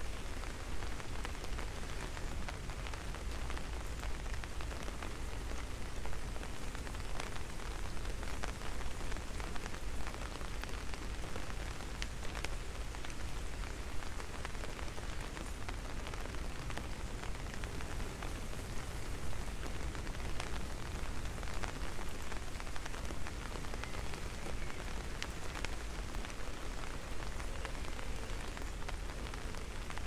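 Steady rain falling, with scattered sharper drop hits and a low rumble underneath.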